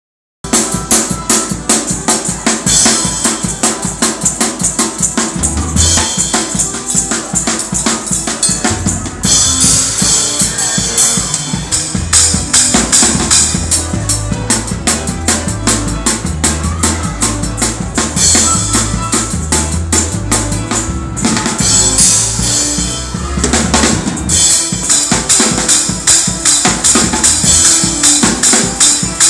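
Drum kit played fast in a gospel praise-break style: rapid snare and bass-drum strokes under crashing cymbals. Deep bass notes come in about six seconds in and run steadily from about halfway.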